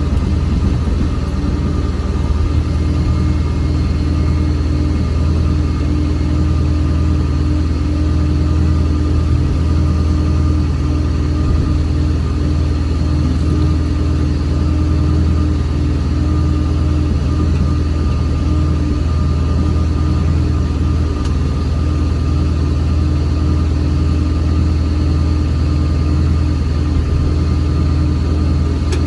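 A motor vehicle's engine runs steadily as a constant low drone, with no change in engine speed.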